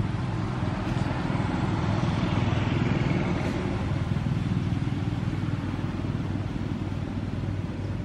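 A motor vehicle engine running steadily with a low hum, growing a little louder about two to three seconds in.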